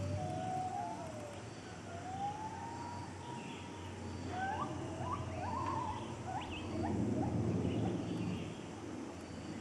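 Gibbons calling from the forest: long swooping whoops that rise and fall, two voices overlapping at first, then a run of shorter, quicker rising notes from about halfway, over a steady low hum.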